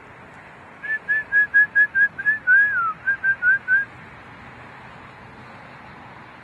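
A person whistling a quick string of short, clear notes, about five a second, broken by one longer note that swoops and falls, then four more short notes, as if calling a dog. A steady low background noise runs underneath.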